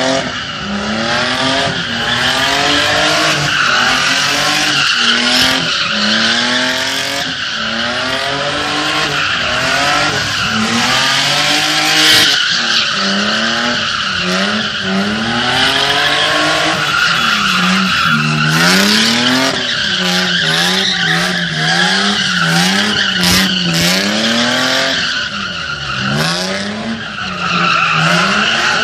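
BMW E30 drifting: its engine is revved hard, rising and falling over and over, while the rear tyres squeal steadily. From about two-thirds of the way through, the revs bounce quickly up and down in short, even swings.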